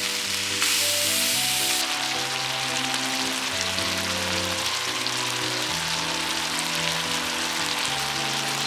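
Food sizzling in a hot pan as a steady hiss, a little louder for about a second near the start, under background music.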